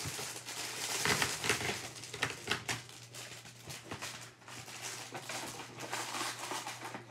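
Irregular rustling and small clicks as the mini cubes' packaging is handled, busier in the first half.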